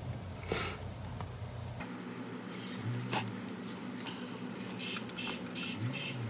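Handling sounds from a finish nailer being turned over in gloved hands: a few light clicks and short rustles over a steady low hum.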